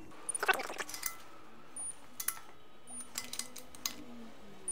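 Scattered metallic clicks and clinks of a wrench and socket on the nuts of an air-cooled VW engine's crankcase as they are tightened toward torque. A quick cluster comes about half a second in and a few more in the second half.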